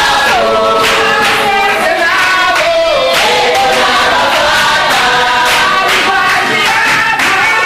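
A group of voices singing together in chorus, over a steady beat of sharp strikes.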